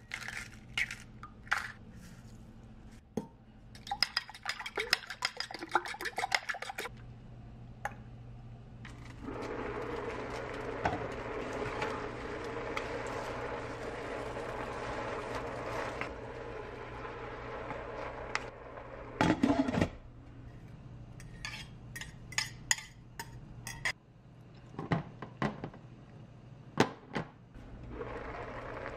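Cooking sounds: an egg cracked on a ceramic bowl, then a few seconds of rapid clicking as eggs are beaten in the bowl. A steady sizzling hiss follows from a hot stainless steel pot of glass noodles and spinach, broken by a loud clatter and then scattered clinks and knocks of utensils against the pot.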